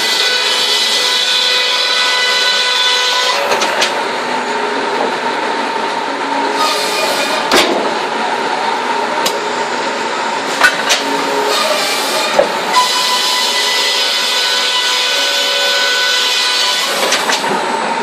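Circular saw on a sawmill breast bench running with a steady whine while timber is worked through it. A brighter hiss drops away a few seconds in and comes back later, and a few sharp knocks of timber sound in the middle.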